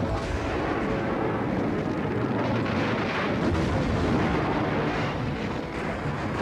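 Cartoon explosion sound effects: a continuous, dense rumble of blasts.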